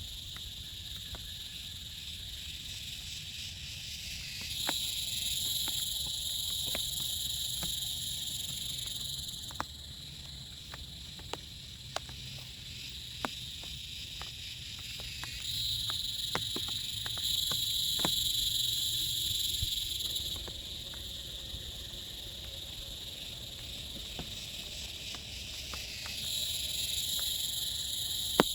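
Insect chorus, a steady high-pitched trill that swells louder three times and eases back in between, with scattered sharp ticks like drips tapping.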